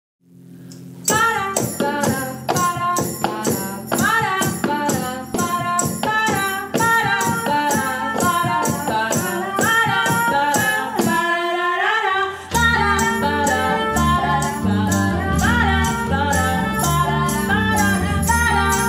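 Acoustic cover song: a woman singing over acoustic guitar, with a steady jingling beat like a tambourine. Deeper harp notes join about twelve seconds in.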